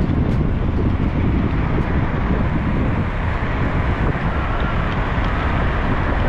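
Wind buffeting the microphone: a steady low rumbling noise with no clear pitch.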